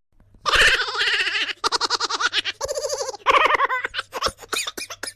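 A high-pitched, laugh-like voice in rapid quavering pulses, with a few short breaks, ending in a quick run of sharp clicks.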